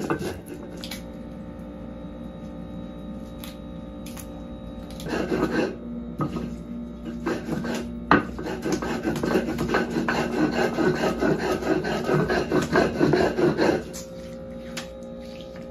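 Chiles being ground by hand on a stone grinder: stone scraping and rasping over stone in repeated strokes. It is fainter for about the first five seconds, louder from about five seconds in, and eases off near the end.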